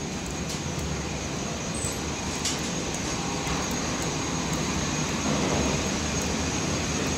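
Steady rumble and hum of parked airliners at the gate, with a faint steady high whine, heard from inside a glass-walled jet bridge; it grows a little louder toward the end.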